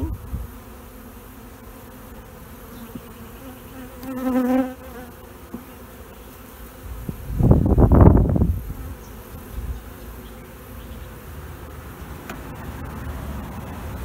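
Honeybees buzzing around an open hive, with a single bee buzzing close by for about a second, roughly four seconds in. A louder rush of noise swells and fades a little past halfway.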